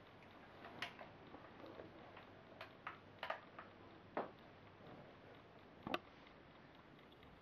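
Near silence: room tone with a handful of faint, short clicks and knocks scattered through it, the sharpest one near the end.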